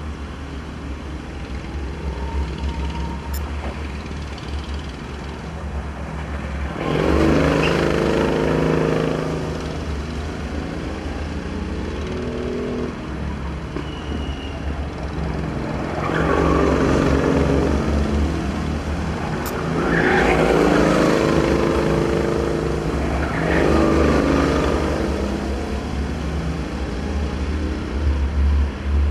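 Racing go-karts driving past on the circuit: four loud passes, each engine note rising and then falling away over one to two seconds, with other kart engines running further off in between.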